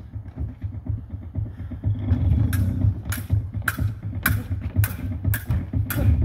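Stage-combat rapiers clashing blade on blade in a steady rhythm, about two strikes a second, starting about two and a half seconds in, over a low steady hum.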